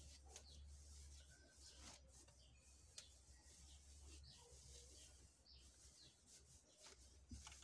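Near silence: faint, short bird chirps and a few soft clicks over a steady low hum.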